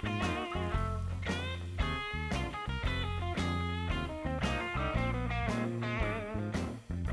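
Instrumental rock music led by guitar with bending notes, over a steady bass and drums; it drops out briefly near the end.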